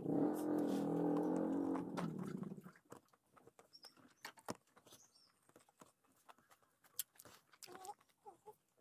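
A drawn-out, steady pitched vocal sound for the first two and a half seconds. Then faint scattered clicks and smacks of eating by hand and chewing.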